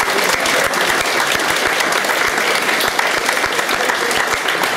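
Many people applauding: dense, steady clapping.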